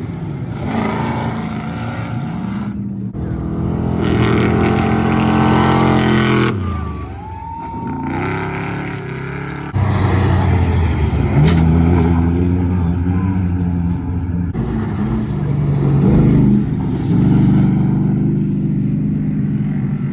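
Off-road race vehicles' engines revving hard and passing one after another, the pitch rising and falling as they go over the jump. The sound changes abruptly several times.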